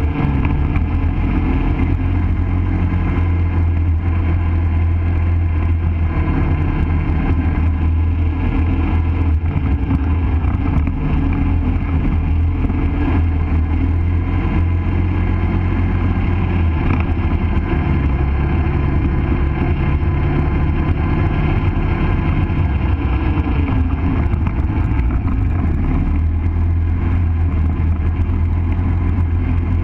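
ATV engine running steadily under way on a dirt trail, its note rising and falling a little now and then with the throttle.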